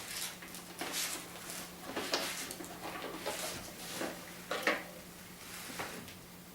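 Hands working on a plastic paintball hopper shell and its small screws: scattered light clicks and rattles, about one a second, with a louder pair of clicks just before the middle.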